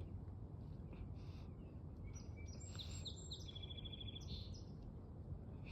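A small bird singing a short phrase of high chirps about halfway through, ending in a fast even trill, over a steady low background rumble. Fainter calls come from other birds.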